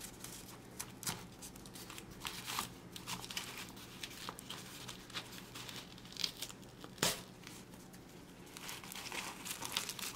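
Newspaper wrapping crinkling and tearing as it is pulled open by hand in irregular short rustles, with one sharper click about seven seconds in.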